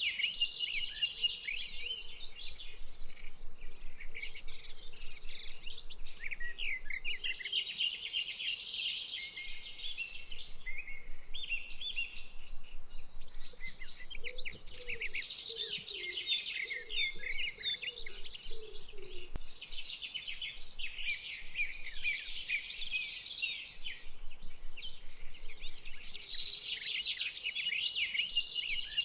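Many songbirds singing and chirping together, with rapid overlapping notes that never stop.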